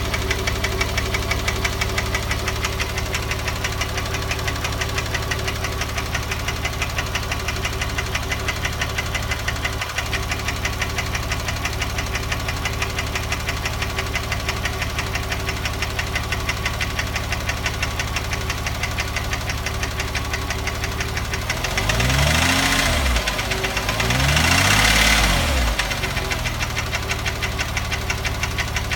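Porsche 997 3.8 flat-six idling with a fast, regular knocking tick. The throttle is blipped twice about three-quarters of the way through. The owner suspects the knock is piston slap or a hydraulic lifter.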